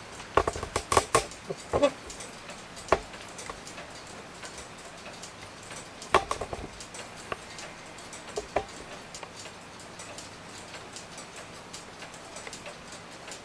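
1915 Gilbert wall clock ticking steadily as its pendulum swings. A few louder clicks and knocks are mixed in, clustered in the first two seconds.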